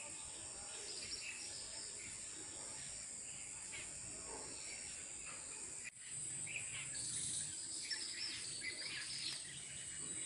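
Outdoor ambience: a steady high-pitched insect buzz with scattered bird chirps over it. The sound drops out for an instant about six seconds in.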